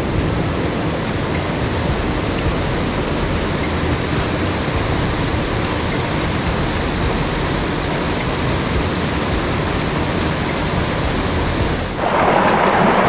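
Mountain stream water rushing over rocks, a steady broad hiss; about twelve seconds in it becomes louder and brighter.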